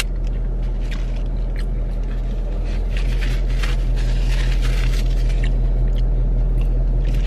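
Chewing on a fried chicken sandwich, with scattered short crunches and the rustle of a paper wrapper and napkin, over a steady low hum inside a car.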